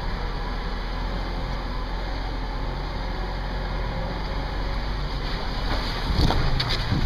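Off-road vehicle's engine running low and steady as it crawls over a rocky trail, with wind buffeting the microphone. A few sharp knocks and clatters about six seconds in as the vehicle jolts over rocks.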